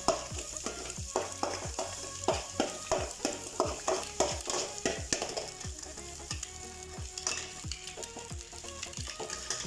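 Ginger-garlic paste and scrambled egg sizzling in hot vegetable oil in a wok-style pan while being stirred with a spatula, with a steady run of strokes throughout.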